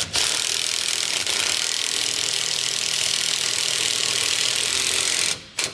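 Cordless electric ratchet running steadily for about five seconds as it drives a 5/8 socket onto a bolt, then stopping abruptly.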